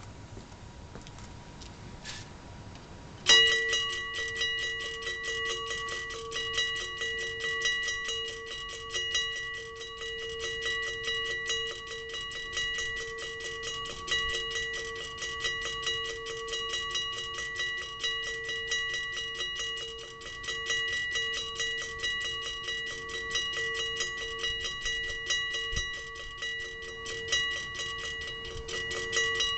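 Western Railroad Supply Co. Model 1275 mini railroad crossing bell starting up about three seconds in, its electric striker hammering the gong in a rapid, even ring that keeps going. Its contacts have been adjusted to make it strike a little slower.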